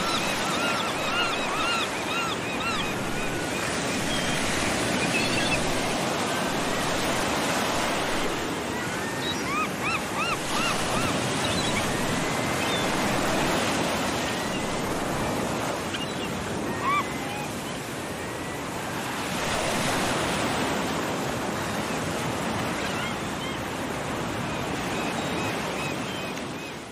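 Beach ambience: ocean surf washing in and out in slow swells, with short runs of quick, repeated bird chirps a couple of times.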